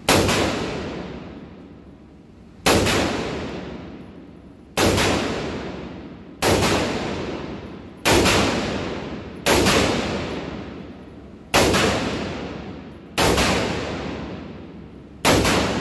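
AR-15 rifle firing single shots in slow semi-automatic fire: nine sharp cracks, about one every two seconds. Each shot echoes and dies away in the reverberation of an indoor range.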